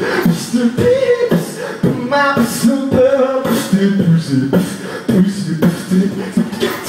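A man beatboxing into a handheld microphone: a rhythmic run of mouth-made drum hits with short pitched vocal sounds mixed in.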